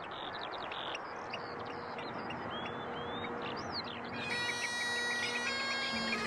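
Birds chirping and twittering over a steady hiss, with low bagpipe drones sounding faintly; about four seconds in the bagpipe chanter comes in, playing a tune over the drones.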